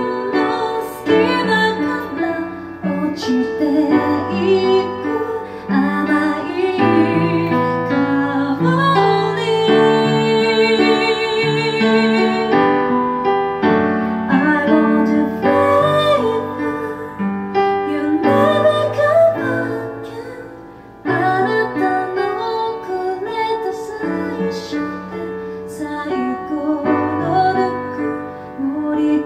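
A woman singing while accompanying herself on piano, including a long held note with vibrato about ten seconds in. The music dips briefly about twenty seconds in before voice and piano come back in.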